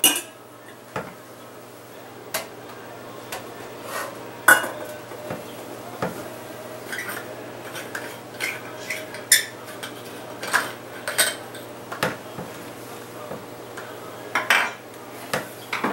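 Scattered clinks and taps of glass and metal as a ceiling light's cut-glass globe is handled and the bulb is unscrewed from its socket by hand. The loudest clink comes about four and a half seconds in.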